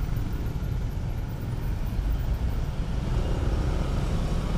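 Honda CB150R's single-cylinder engine running at low speed while filtering through slow traffic, heard as a steady low rumble mixed with road noise.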